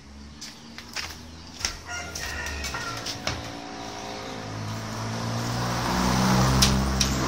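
Honda Prima underbone's small four-stroke engine kick-started, catching about four and a half seconds in and running, getting louder and then settling into a steady idle. It runs somewhat rough, with Fanta in the crankcase in place of engine oil.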